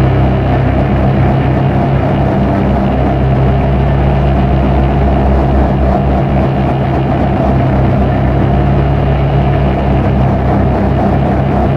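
Dark ambient drone music: a loud, unchanging low drone of layered sustained tones under a dense, noisy haze, with no beat.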